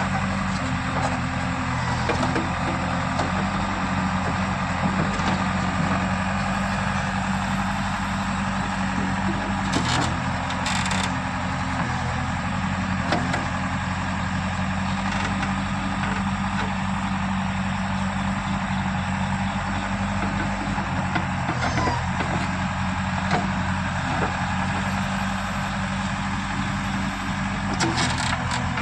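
Diesel engine of a JCB 3DX backhoe loader running steadily at work, with a few short knocks about ten seconds in and again near the end.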